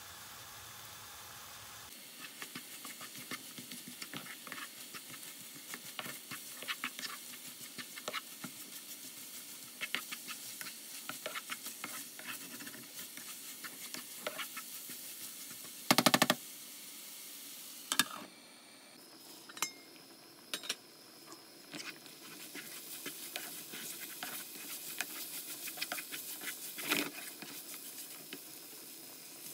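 Chicken mince frying in a wok with a steady sizzle, stirred with a wooden spatula that clicks and scrapes against the pan. There is one loud knock about halfway through and a couple of smaller ones just after, then a quieter spell before the stirring picks up again.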